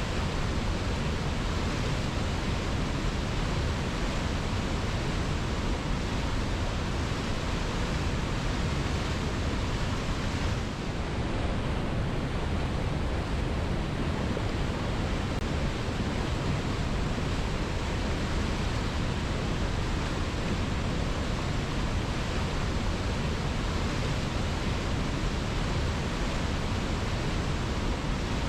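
Waterfall: a steady, unbroken rush of falling water, heavy in the low end, dipping slightly for a moment about eleven seconds in.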